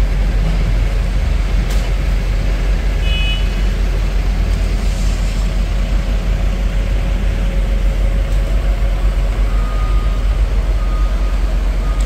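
Loud, steady low rumble of a heavy vehicle's engine running, with faint beeps about once a second near the end.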